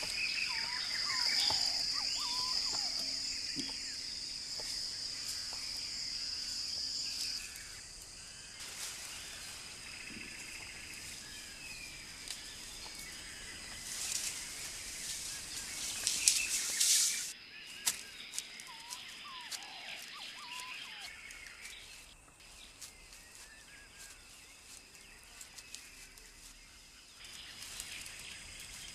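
Background ambience: a steady high-pitched whine, strongest for the first seven seconds or so, with scattered small bird-like chirps and ticks. There are two short bursts of rustling noise around the middle.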